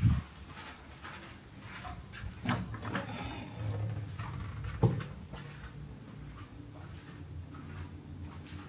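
A few knocks and thuds, the loudest right at the start and another sharp one about five seconds in, over a low steady hum.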